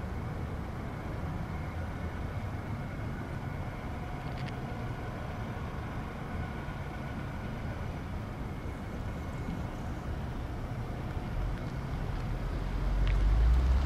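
Boeing 777 freighter's twin GE90 turbofan engines running during a high-speed taxi run: a steady rumble with a faint whine, the low rumble swelling louder near the end.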